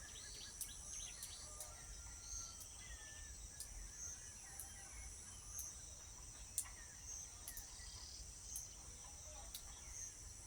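Faint outdoor ambience of insects, likely crickets: a steady high-pitched drone that swells at a slow regular pulse about every second and a half. Scattered short bird chirps and a few sharp ticks sound over it.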